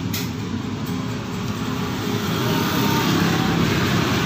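Street traffic dominated by motor scooters and motorcycles, their small engines running steadily under a wash of road noise. It grows a little louder near the end as the traffic comes closer.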